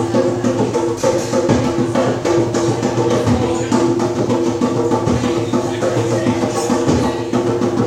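Live music: held chords over a steady percussion beat.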